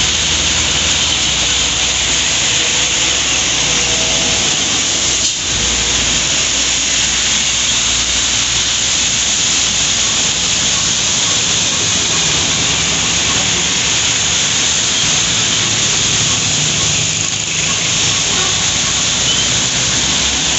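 Steady hiss of falling rain, with the engine rumble and wet-tyre swish of trucks, buses, cars and motorcycles passing on a wet road.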